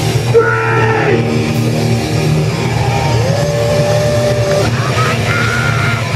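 Loud live rock band playing, with distorted electric guitars over a heavy bass and drums. Long held guitar notes slide up and down in pitch.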